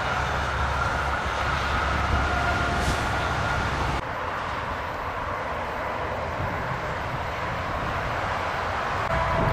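Steady rumble and tyre noise of motorway traffic, with a faint steady high tone over it. The sound changes abruptly about four seconds in.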